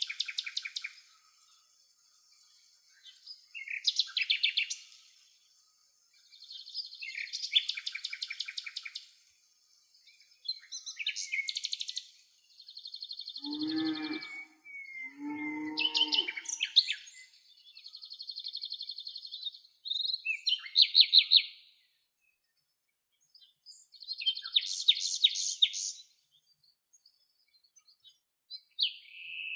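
Songbirds singing repeated high, rapid trilled phrases, a new phrase every two or three seconds. Around halfway through, a farm animal gives two short, low calls about two seconds apart.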